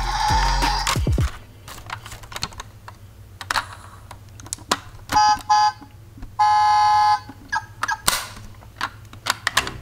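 A plastic toy camper van being handled: sharp clicks and clacks as its small hinged doors are opened, and two electronic beeps from its built-in sound unit past the middle. A tune ends about a second in.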